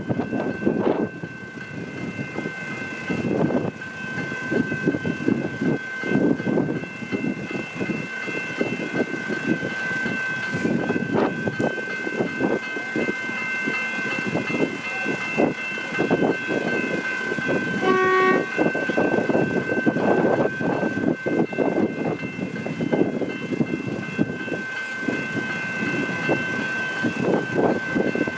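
Level crossing's General Signals electronic bells ringing continuously while a train runs through the crossing, its wheels clattering over the rails. A brief horn toot sounds partway through.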